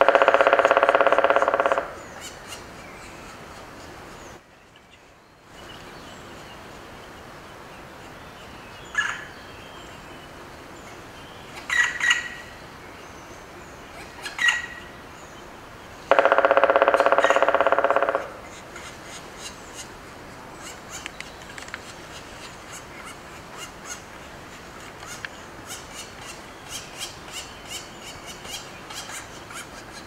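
Black woodpecker at its nest hole giving two long, even calls of about two seconds each, one at the start and one about sixteen seconds in. Short chirps of other woodland birds come between the calls and after them.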